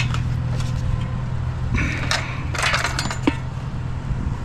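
Several short clinks and rattles of hard objects being handled, clustered about two to three seconds in, over a steady low engine hum.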